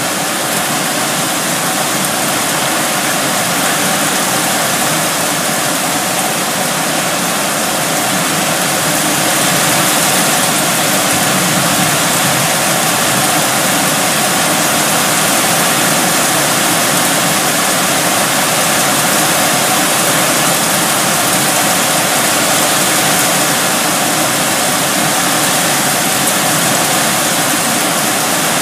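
Heavy rain in strong wind: a loud, steady rushing downpour that swells a little about ten seconds in.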